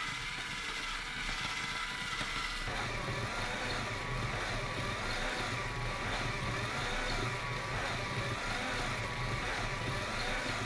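LEGO Power Functions electric motor driving a LEGO automaton's gear train and cranks, a steady whirring mechanical run. From about two and a half seconds in, a whine rises and falls in an even repeating cycle over a steady hum.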